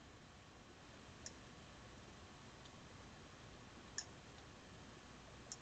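Near silence with three faint computer mouse clicks: about a second in, about four seconds in, and near the end.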